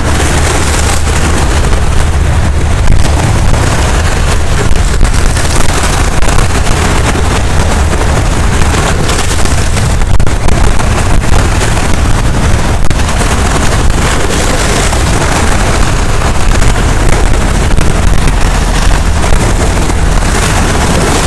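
Strong wind buffeting the microphone, a loud, gusty low rumble, over waves breaking and washing across the rocks.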